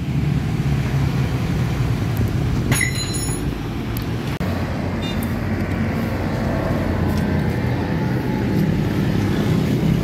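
Yamaha Sniper 155's single-cylinder four-stroke engine idling steadily through an aftermarket MVR1 adjustable muffler. A short metallic clink comes about three seconds in.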